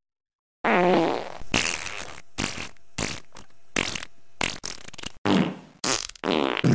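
Fart sound effect: a long, wavering fart starting about half a second in, then a string of short noisy bursts, and another long fart near the end.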